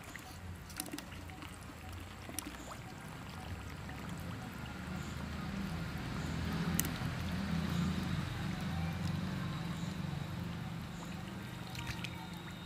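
Water sloshing and trickling, with a low rumble that swells about halfway through and a few small clicks.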